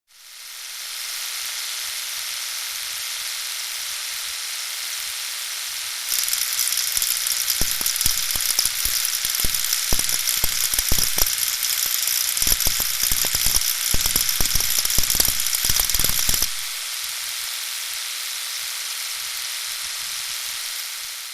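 Engine noise as heard for knock detection: a steady hiss-like running sound. For about ten seconds in the middle, louder irregular sharp knocks are mixed in, the pinging of engine knock (detonation). It then settles back to the steady noise.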